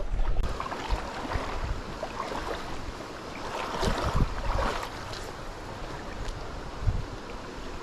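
Steady rushing noise of running creek water, with wind buffeting the microphone.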